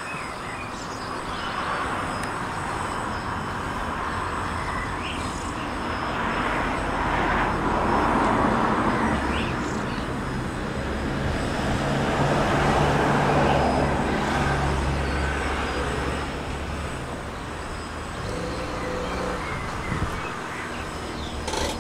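DJI Phantom quadcopter's four electric motors and propellers buzzing steadily in flight, a hum of several low tones over a whooshing blade noise. It swells louder around a third of the way in and again past the middle.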